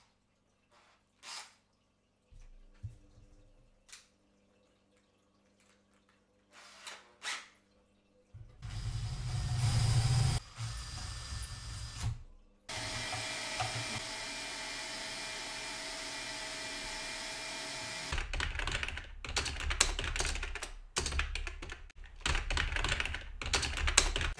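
A Makita cordless drill boring a hole through the side of a computer case. After a few faint handling clicks, the drill runs in a loud burst of about two seconds, then steadily for about five seconds. Near the end comes typing on a computer keyboard: a quick run of key clicks.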